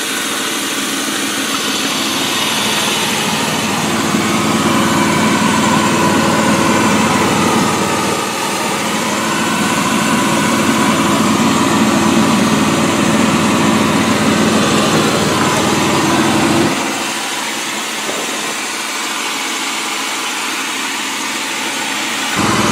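Portable air compressor running steadily, a continuous small-engine drone. About seventeen seconds in, its low end drops away and the sound gets quieter for several seconds, then returns just before the end.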